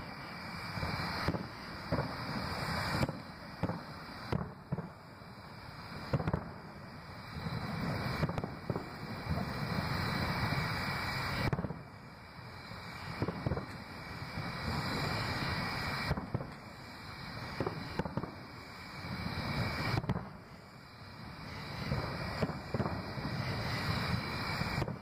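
Distant aerial fireworks shells bursting: booms in quick, irregular succession, some in clusters, over a steady low rumble.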